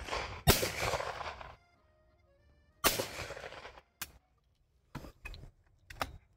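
Two loud shotgun shots from a Beretta 686 over-and-under, about two and a half seconds apart, each trailing off in a long echo across the open ground. A sharp, quieter crack comes just before the first, and a few light clicks follow later.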